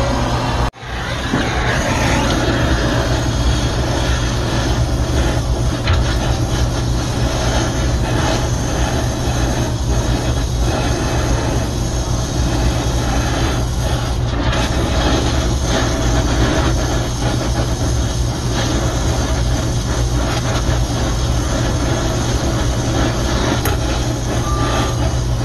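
Brazing torch flame hissing steadily as it heats the brazed joint of a TXV to unsweat the valve from its copper line. There is a brief break about a second in.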